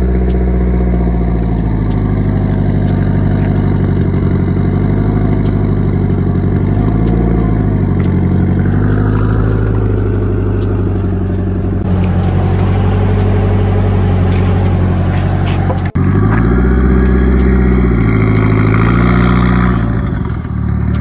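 Nissan 240SX engine idling through its exhaust, blipped up in revs a couple of times, then held higher for about two seconds near the end before dropping back to idle.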